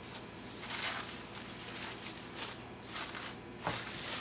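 Plastic cling wrap crinkling and rustling in short, irregular bursts as it is pressed and tucked around a glass baking dish.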